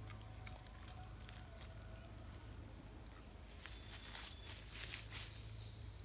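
Faint rustling and light crackling of movement through woodland undergrowth, with a louder patch about four to five seconds in. Near the end a bird calls in a quick series of falling chirps.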